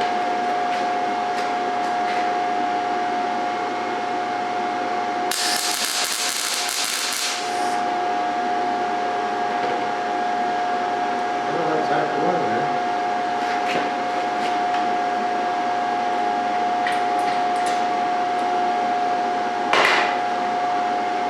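MIG welder arc crackling and hissing in one burst of about two seconds, a tack weld at 17.5 volts and a wire speed of 95, under a steady high hum that runs throughout. A single short sharp sound comes near the end.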